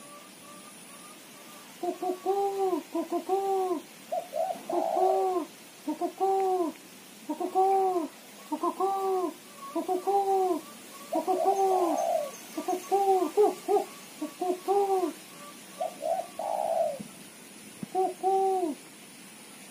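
Caged female spotted dove (tekukur) giving its chattering 'ketrekan' call: short arching coos, about two a second, in runs broken by pauses.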